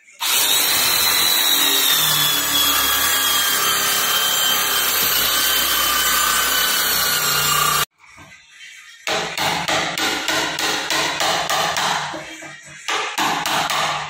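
Electric drill with a spade bit boring into the wooden edge of a sliding door, running steadily for about eight seconds with its whine sinking slightly in pitch, then stopping abruptly. After a short pause, a run of quick knocks, about three a second: a hammer driving a chisel to cut out the lock mortise.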